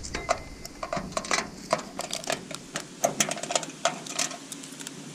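Key turning and rattling in an old, rusty rim lock on a metal door: a quick, irregular run of metallic clicks and knocks, some ringing briefly.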